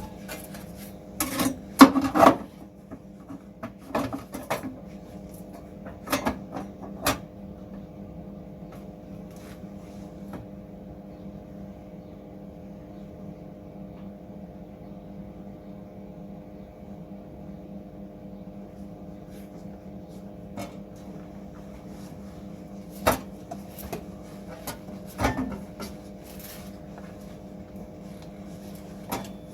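A steady mechanical hum, with scattered knocks and clatters of metal parts or tools being handled, the loudest about two seconds in and a few more near the end.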